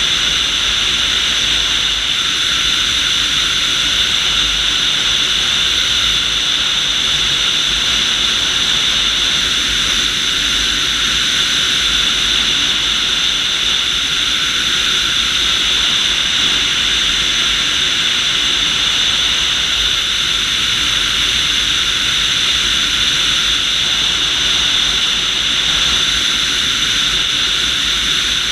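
IAR IS-28M2 motorglider in flight: a steady, unchanging drone of engine and rushing air, heard from a camera on the tail, with a bright steady whine over the rush.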